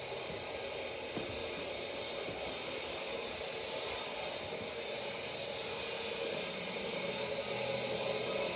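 A steady hissing noise, growing slightly louder near the end.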